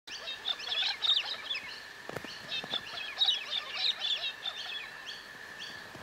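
Many birds chirping and calling in quick, overlapping high notes, over a steady high hum.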